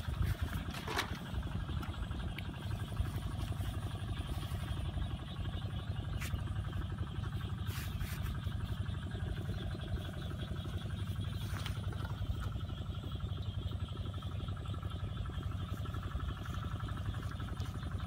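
A small engine running steadily, with a few faint clicks over it.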